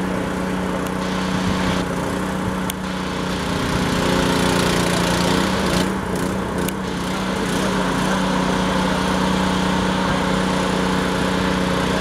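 An engine running steadily at a constant speed, a little louder from about four seconds in, with a few light clicks over it.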